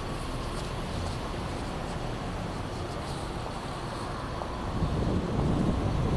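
City street traffic noise: a steady low rumble of passing vehicles with wind buffeting the microphone, growing louder about five seconds in.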